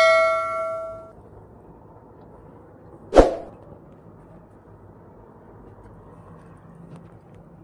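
A struck dinner plate rings with a bell-like tone that fades out over about a second, then a single sharp knock on the plate about three seconds in.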